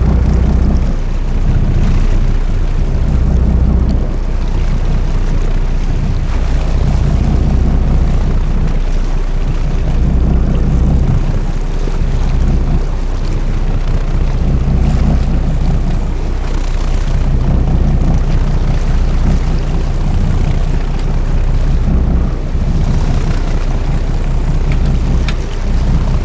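Fishing boat's engine running steadily, a low drone that swells and fades every few seconds, over a wash of wind and water noise.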